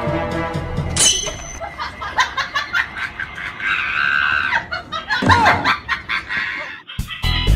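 A person laughing in short bursts, mixed with a little speech. Background music stops about a second in, and a new music track starts near the end.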